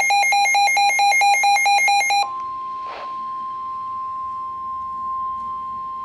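Weather radio receiver's electronic alarm beeping rapidly, about five beeps a second, stopping about two seconds in and leaving the steady 1050 Hz NOAA Weather Radio warning alert tone sounding alone: the signal that a warning message is about to be broadcast.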